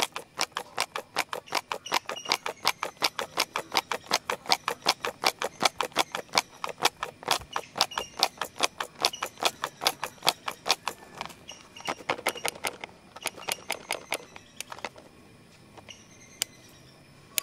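Hard plastic pencil box rattling as it is shaken, its contents knocking inside in a fast, even run of clacks about five a second. After about eleven seconds the clacks thin out and stop, leaving a couple of single clicks near the end.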